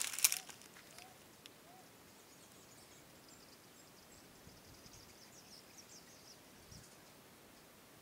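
Faint outdoor ambience in dry scrub: a brief burst of crackling at the very start, like dry leaves or twigs crunching, while a bird gives a short call about twice a second through the first two seconds. Thin high chirping follows from about three seconds in to near the end.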